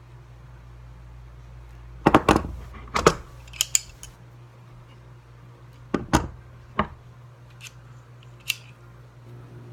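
Pliers being handled, with a series of sharp metallic clicks and clacks. The clacks come in small groups from about two seconds in to near the end, the loudest early on, over a low steady hum.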